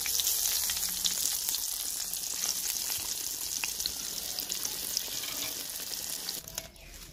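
Flour-coated chicken drumsticks deep-frying in hot oil in an aluminium karahi: a steady, loud sizzle full of small crackles. The sizzle drops off sharply about six and a half seconds in.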